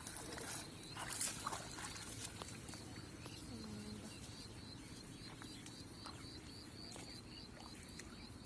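Rural outdoor ambience: a high chirp repeating about three times a second, a brief low animal call about three and a half seconds in, and a few short knocks in the first second and a half.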